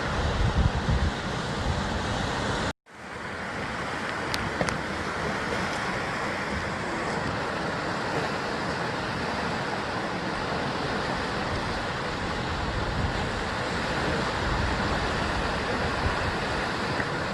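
Ocean waves breaking on a rocky shore, a steady wash of surf, with wind buffeting the microphone in the first second. The sound cuts out completely for a moment about three seconds in and fades back in.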